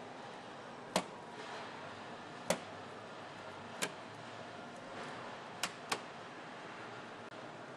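Car assembly hall ambience: a steady background noise with sharp clicks and knocks, about five of them at uneven intervals, two close together a little before the end.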